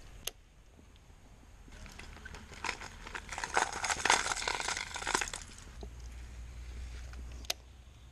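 Crinkling, rustling handling noise close to the microphone for about three and a half seconds, starting about two seconds in, as the wearer bends down. A single sharp click comes just after the start and another near the end.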